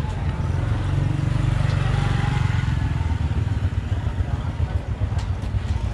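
Small motorbike engine running steadily at low speed, with an uneven pulse in its low hum.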